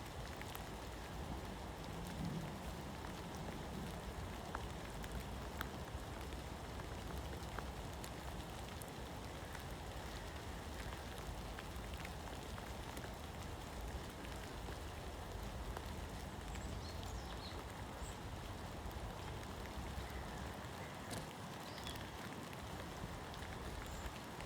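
Steady rain falling, an even continuous hiss with scattered faint drop ticks.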